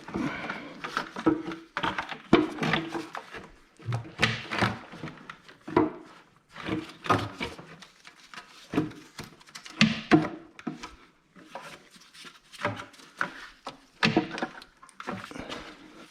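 Irregular knocks, clunks and scrapes of parts being handled and fitted in an engine bay as an intake manifold is worked into place by hand.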